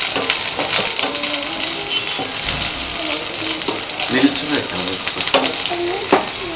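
Chopped onions frying in hot oil in a pan: a continuous sizzle full of small crackling pops, at the stage of frying them until they turn brownish.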